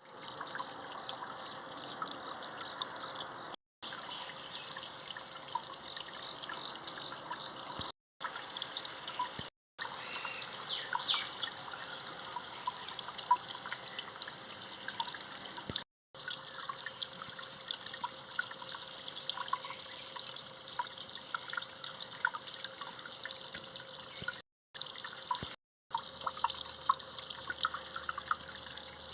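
Water flowing in a small stream, a steady trickling with little splashes and drips, cut to dead silence for a moment about six times.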